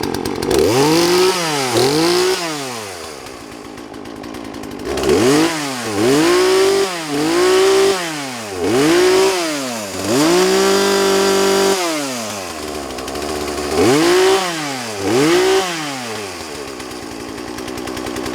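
Poulan PR4218 two-stroke chainsaw running, its throttle blipped again and again so the engine revs up and drops back, settling to a lower idle between groups of blips, with one longer held rev about halfway through.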